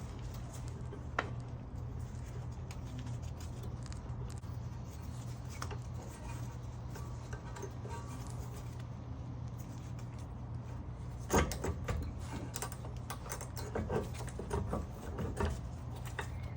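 Rear brake caliper being worked back over new brake pads: scattered light metallic clicks and knocks, most of them in the second half, over a steady low hum.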